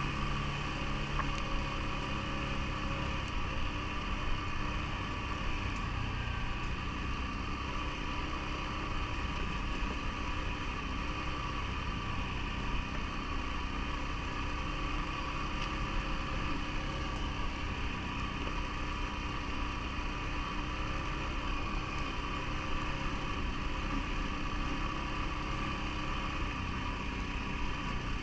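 CFMoto ATV engine running steadily at an even, unchanging pitch and level.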